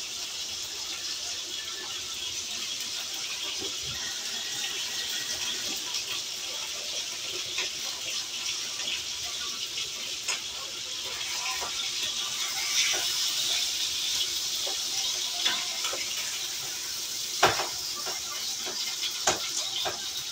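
Hamburger patties sizzling in a frying pan: a steady, crackling hiss that swells a little about twelve seconds in. Near the end come a few sharp knocks of a spatula against the pan, the loudest about three seconds before the end.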